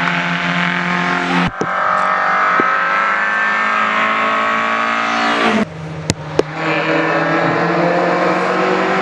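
Rally car engines at high revs, heard in short takes of different cars. In the middle one car's engine note falls steadily as it passes. After a couple of sharp cracks, another engine's pitch climbs as it accelerates.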